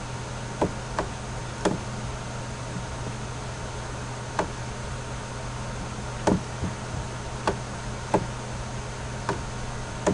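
Computer mouse clicking, about ten sharp clicks at irregular intervals, over a steady low hum and hiss.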